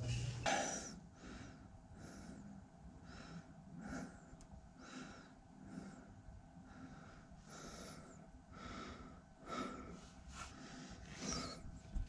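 A person breathing hard in a steady rhythm, about one breath a second, while exerting himself crawling in a tight space.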